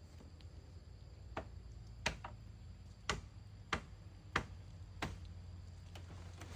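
A hand tool striking the hut's wooden poles during demolition: about seven sharp knocks, roughly one every two-thirds of a second, starting about a second and a half in.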